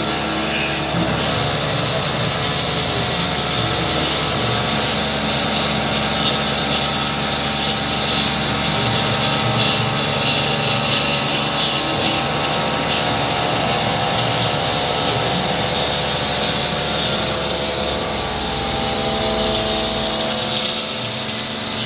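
Homemade CNC milling machine's spindle running steadily with a small end mill cutting a metal workpiece under flood coolant, with several steady tones and a high whine over the mechanical noise.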